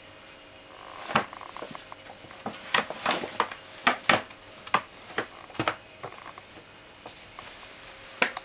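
Paper shopping bag crinkling and crackling as a cat shifts and scrabbles about inside it, in a run of sharp crackles from about a second in to about six seconds, with one more near the end.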